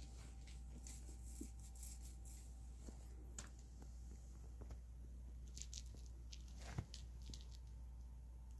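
A cat playing with a toy mouse: faint scattered scuffles and small clicks, with one louder knock about seven seconds in, over a steady low hum.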